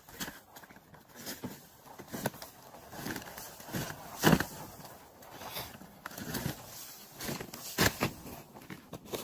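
Asphalt shingles being laid on a roof: shingles scraping and shuffling against each other and the roof, with two sharp nailing impacts, about four seconds in and again near the end.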